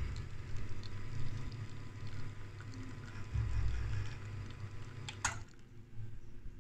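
Espresso machine's pump humming low and steadily while a shot pours from the portafilter spouts into two cups; about five seconds in it cuts off with a short hiss as the shot is stopped.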